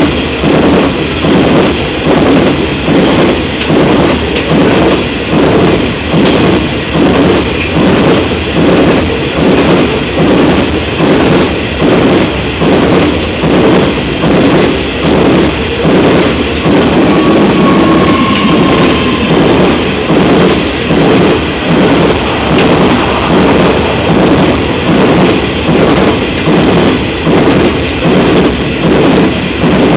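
Loaded coal hopper wagons of a heavy-haul electric coal train rolling past, their bogie wheels on the rails beating a steady rhythm about once a second.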